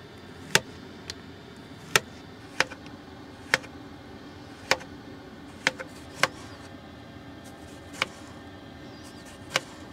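Kitchen knife slicing zucchini, squash and tomatoes into thin rounds, each cut ending in a sharp tap on the cutting board: about ten taps at an uneven pace, roughly one a second, over a steady low hum.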